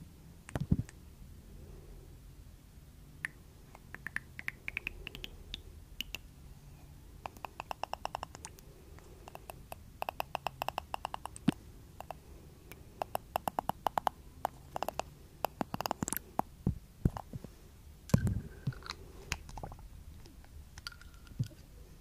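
Glass pipette dropper and small blue glass bottle handled up close to a plastic-wrapped microphone, making fast runs of light clicks and taps. A few soft low thumps come near the end.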